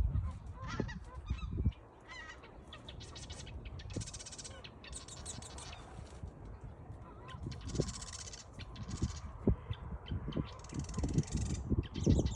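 Birds at a pond giving harsh, raspy calls in repeated bursts of about half a second to a second. There is a low rumble of wind on the microphone and a few sharp knocks near the end.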